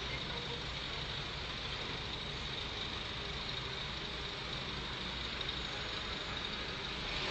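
Diesel engine of an old crawler piling rig running steadily under load as the rig climbs onto a low-loader trailer.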